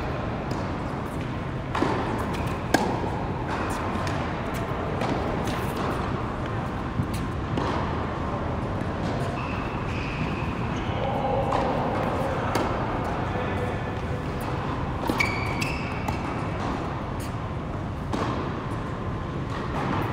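Tennis ball struck with rackets during a rally on an indoor hard court: a few sharp pops several seconds apart, the loudest about three seconds in, echoing in the large hall over steady background noise, with a few brief high squeaks of shoes on the court.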